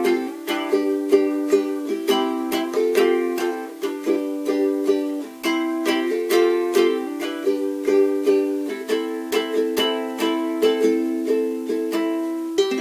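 A Córdoba ukulele strummed in a brisk, steady rhythm of chords, with no voice over it.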